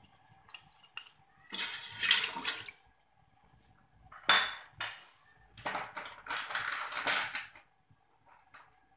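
Kitchen utensils knocking against a stainless steel pot and water sloshing in it, in a few short bursts with a sharper knock about four seconds in.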